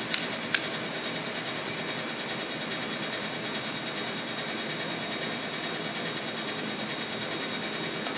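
Steady machine-like background hiss and hum with a faint high whine, its source unseen. Two sharp clicks in the first second as a spoon sets salad onto a tostada on a foam tray.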